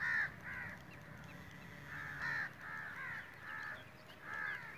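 Birds calling: a run of about nine short, repeated calls in quick succession, the first one the loudest.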